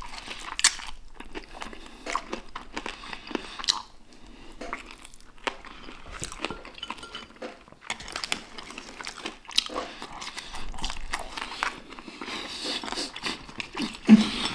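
Close-up biting and chewing of crispy fried chicken, with irregular crunches from the breading as it is chewed.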